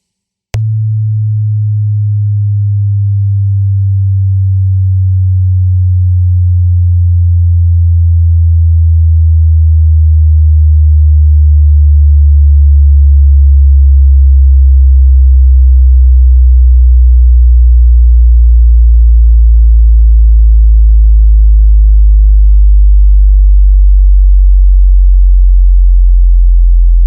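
Subwoofer test tone: a very loud, deep pure tone that starts suddenly and glides slowly lower in pitch, from about 100 Hz down to about 50 Hz.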